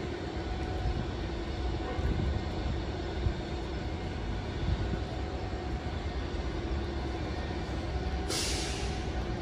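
Long Island Rail Road train running at the station: a steady low rumble with a faint hum. About eight seconds in comes a sharp hiss of released air lasting about a second.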